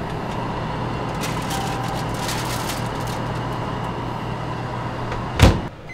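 Tin foil crinkling and clicking as a pizza is slid onto a convection microwave oven's rack over a steady low hum. About five and a half seconds in, the oven door shuts with a loud thump.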